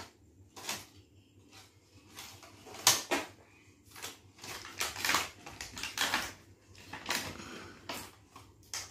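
Irregular crinkles, rustles and light knocks of plastic toys and plastic wrapping being handled by a small child, with a few louder bursts scattered through.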